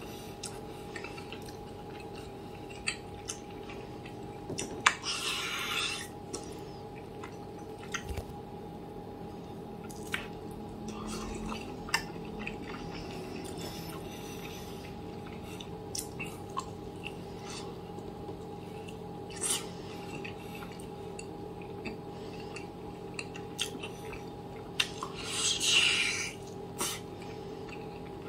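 Close-up eating sounds: wet chewing, lip smacks and small clicks as meat is gnawed off a piece of braised oxtail held in the fingers. Two longer, louder wet bursts come about five seconds in and near the end, over a steady hum.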